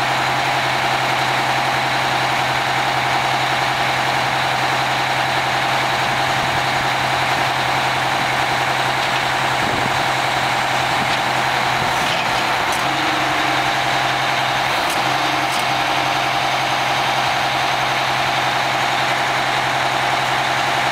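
Oshkosh M1074 PLS heavy truck's diesel engine running steadily while its hydraulic hook arm finishes pulling the flatrack onto the bed and lowers it flat. A few faint clicks come about halfway through.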